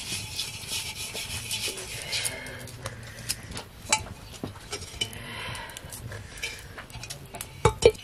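Kitchen utensils at work during cooking. Quick scraping strokes for the first couple of seconds, then scattered clicks and two sharp knocks near the end.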